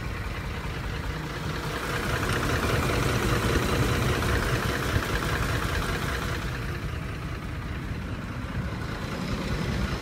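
Ford 5.4-litre three-valve Triton V8 idling with a steady, rapid knocking from its cam phasers. This is textbook phaser knock, a bad case, and it can be heard at the front wheel well. The knocking grows louder for a few seconds in the middle.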